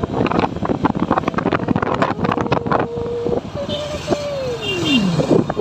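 KTM motorcycle's single-cylinder engine running under way in traffic, shifted up from third to fourth gear, with wind buffeting the microphone. Near the end a tone falls steadily in pitch.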